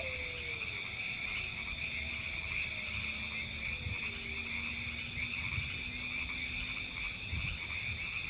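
A chorus of frogs calling steadily, a dense high trilling that does not let up, with a faint falling tone about a second in.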